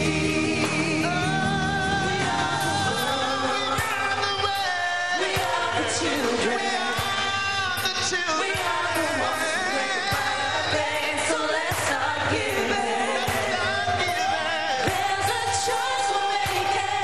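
Live pop performance by a large group of singers with a band: solo voices take turns singing with vibrato over a steady drum beat and full backing.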